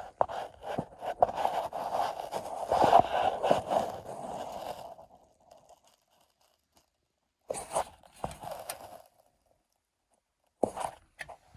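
Goodman gas furnace shaking, giving irregular rattling and scraping with many small clicks for about five seconds. After a gap, two short rattles come near the end.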